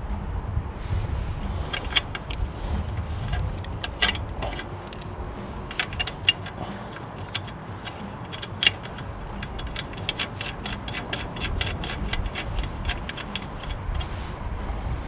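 Irregular metallic clicks and clinks of hand tools and wheel hardware being handled, over a low steady rumble.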